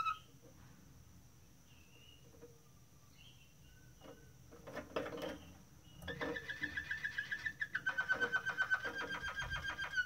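Waterslager canary singing: a few faint short chirps, a louder call about five seconds in, then from about six seconds a fast rapid trill that steps down slightly in pitch about two seconds later.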